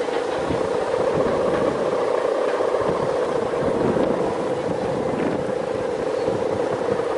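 Steady humming drone from the hummer (guwangan) of a Balinese bebean kite flying in strong wind, with wind buffeting the microphone.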